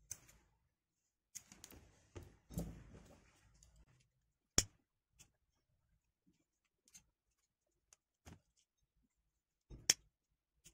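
Scissors snipping nylon macrame cord, then the cord rustling and being handled. A plastic lighter clicks sharply twice, about five seconds apart, as it is struck to melt and seal the cut cord ends.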